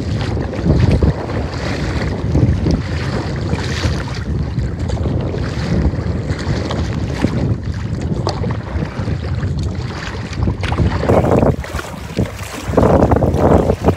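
Strong wind buffeting the microphone in loud, uneven gusts, with choppy lake water slapping and splashing against a kayak's bow.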